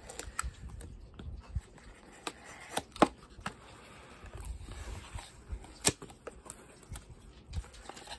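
Cardboard box being cut open and handled: a small safety box cutter scraping along the seal, with scattered sharp taps and clicks as the box and cutter are handled, and the cardboard flap being pulled open near the end.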